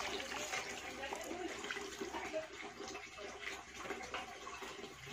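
Water splashing and dripping as wet clothes are wrung out and sloshed by hand in a basin of soapy rinse water, a steady run of small irregular splashes.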